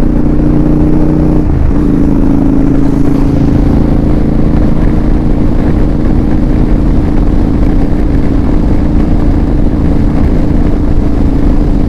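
Royal Enfield GT650's 648 cc parallel-twin engine running loud and steady while riding along. Its note shifts about a second and a half in and then holds.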